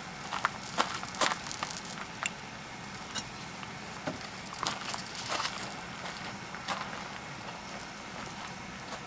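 Scattered light clicks and knocks as a hot raku pot is handled on its stand, over a steady background hiss. The clicks come thicker in the first couple of seconds.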